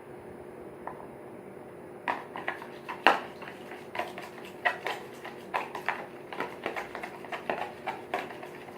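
A utensil clinking against a container while stirring a watery mix of ketchup, hot sauce and water. The clinks start about two seconds in, with one sharp clink a second later, then come quickly and unevenly, several a second.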